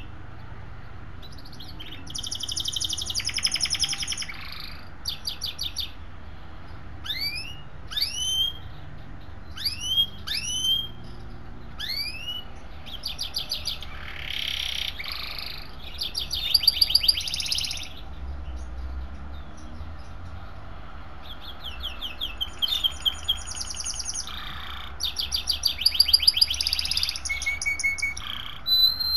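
Small songbird singing: a run of single sharply rising chirps, then fast rolling trills a second or two long, repeated over and over.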